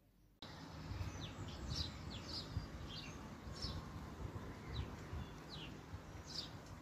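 Small birds chirping outdoors: short, downward-sliding high chirps about one or two a second, over a steady outdoor background with a low rumble. The sound starts suddenly about half a second in.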